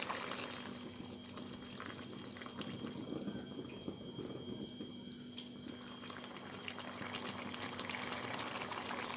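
Chicken curry simmering in the juices released by the chicken, with faint bubbling and many small crackles.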